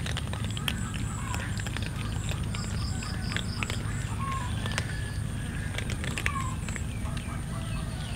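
Several cats crunching dry kibble: a continuous scatter of sharp crunches and clicks, with short chirping calls and a steady low hum in the background.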